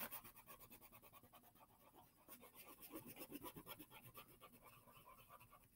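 Faint rapid back-and-forth scratching of an orange colouring stick scribbling on a paper plate, about seven strokes a second, heard briefly at the start and again for about two seconds in the middle.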